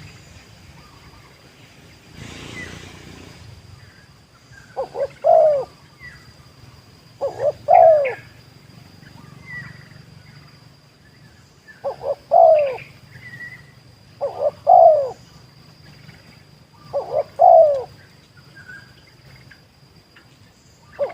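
Spotted dove (tekukur) cooing. Each phrase is a couple of short notes and then a longer falling coo. It calls five times, with a sixth phrase starting at the very end.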